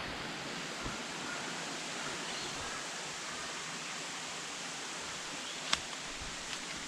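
Steady rush of falling water from a waterfall, with a single sharp tap near the end.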